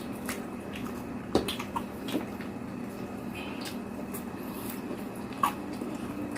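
Wet, squishy eating sounds from someone chewing fried eggplant with egg, with a few sharp smacks or clicks, the loudest about a second and a half in and again near the end.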